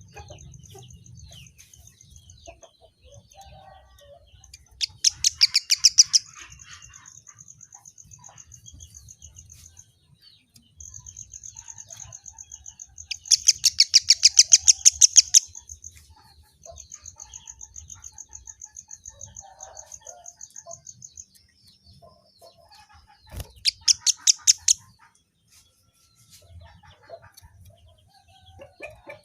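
Kemade (emprit kaji) singing: long, thin, high trills of rapidly repeated notes, broken three times (about 5, 13 and 23 seconds in) by louder, harsher fast rattling phrases.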